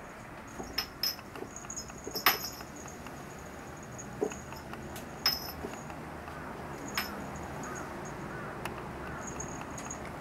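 Light knocks and rattles as a kitten bats at a hanging string ornament, with a small bell jingling. The taps come irregularly, the loudest about two seconds in, and they thin out in the second half.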